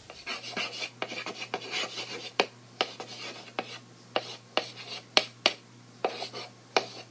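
Chalk writing on a chalkboard: a quick run of scratchy strokes with a sharp tap every so often.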